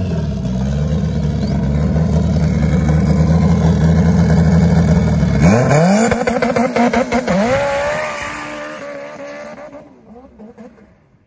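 Honda CRX drag car's engine held at steady high revs on the start line, then launching about five and a half seconds in: the revs climb quickly through two or three upshifts and the sound fades as the car runs away down the drag strip.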